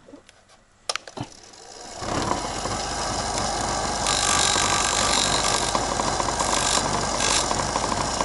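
A click about a second in, then a bench grinder starting up and running steadily. Brighter bursts of grinding follow, one long one a few seconds in and two short ones near the end, as one of the offset locating pins on an amber indicator bulb's metal base is ground away so it fits a socket made for clear bulbs.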